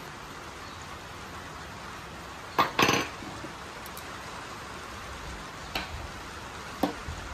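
Steel parts of a DeWalt nail gun knocking on a metal workbench while being handled and cleaned: two loud clanks about two and a half seconds in, then two lighter knocks near the end. A steady hiss runs underneath.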